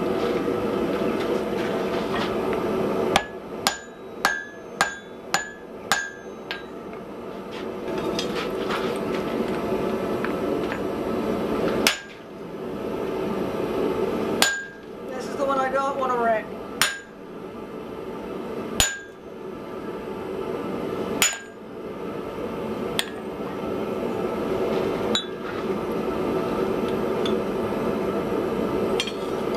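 Hand hammer blows on hot wrought iron at the anvil, each with a short metallic ring: a quick run of about six strikes about three seconds in, then single, spaced blows every couple of seconds.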